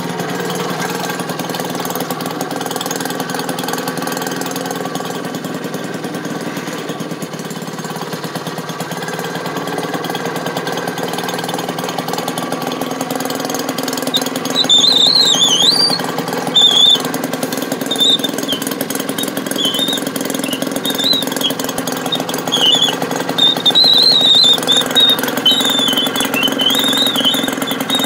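Maytag washing machine's small engine running steadily with the agitator disengaged, so it is running unloaded. High wavering chirps come in over it from about halfway in.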